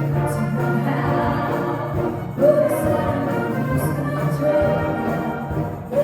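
Choir singing sustained chords with instrumental accompaniment, a louder new phrase coming in about two and a half seconds in.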